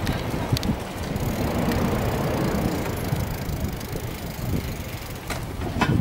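Wind rumbling and buffeting on a handheld camera's microphone as it is carried along a street, with a few light clicks.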